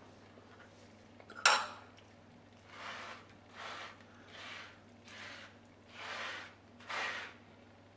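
Hands rubbing a dry spice rub into the skin of a raw whole chicken on a plastic cutting board: a sharp knock about a second and a half in, then about six soft, even rubbing strokes.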